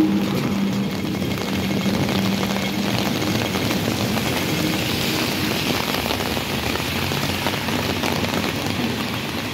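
Heavy rain hissing on a wet city street with traffic running. A passing tram's steady hum is heard for the first few seconds, then fades under the rain and car noise.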